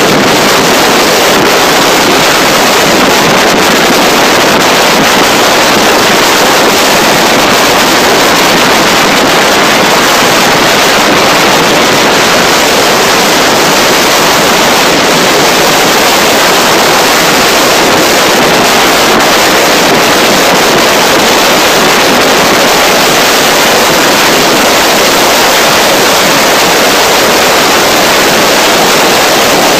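Loud, steady wind rush buffeting the microphone of a handlebar camera on a road bicycle descending at speed, with no breaks or changes.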